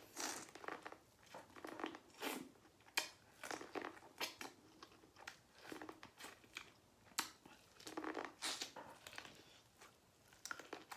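Close-miked chewing and biting of rotisserie chicken: wet, crunchy mouth sounds and lip smacks in an irregular run of short clicks.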